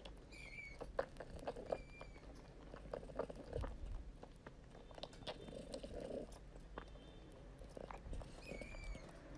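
Cat suckling milk from a baby bottle: faint wet sucking and clicking sounds, with a few short high squeaks now and then.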